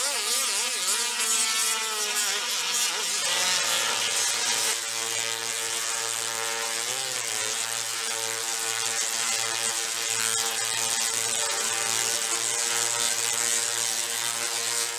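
Tesla coils arcing: a loud buzzing crackle of electric discharges over a pitched hum. The pitch wavers in the first couple of seconds, then holds steady from about three seconds in.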